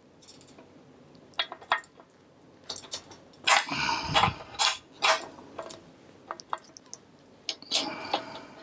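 Metal tools clinking and scraping as an adjustable wrench is worked on the crankset of a vintage mountain bike to take the crank arm off. There is a louder burst of clanking about halfway through.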